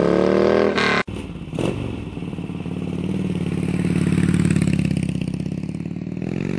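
2003 Harley-Davidson Dyna Low Rider's Twin Cam V-twin with Screamin' Eagle exhaust pulling away under acceleration, its pitch rising. It cuts off abruptly about a second in, and a motorcycle engine runs on, the revs rising slowly and falling again.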